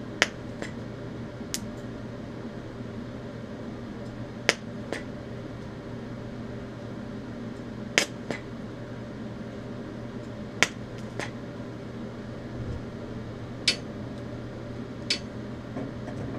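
TIG welding arc from an Eastwood TIG 200 struck in short blasts at 110 amps to speed-tack thin stainless steel sheet. There are about six sharp snaps as the arc lights, several followed by a second softer click about half a second later as it cuts off, over a steady hum from the machine.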